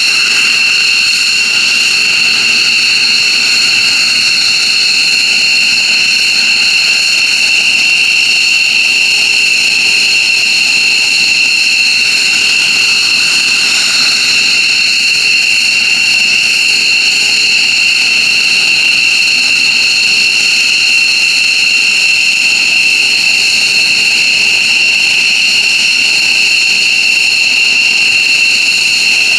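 F-15J Eagle's twin F100 turbofan engines running on the ground at a steady setting: a loud, high-pitched jet whine that holds one pitch over a rush of exhaust noise.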